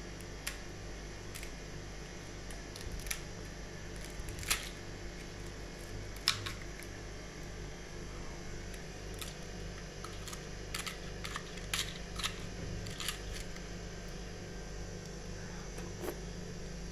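Ice cubes in a plastic ice cube tray being handled and pressed, giving scattered sharp clicks and cracks at irregular moments over a steady low hum.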